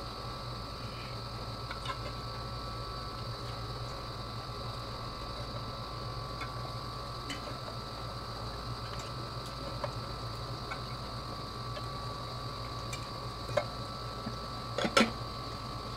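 Lumpia-wrapped shrimp rolls shallow-frying in oil over low heat: a faint, steady sizzle with scattered small pops, under a steady hum. A few louder clicks come near the end.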